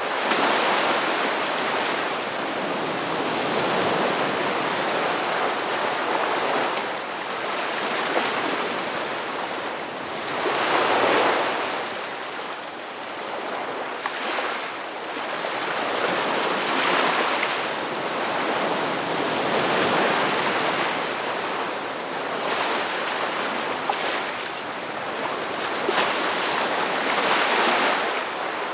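Ocean surf: waves breaking and washing in, a steady rush of water that swells and eases every few seconds, the loudest surge about eleven seconds in.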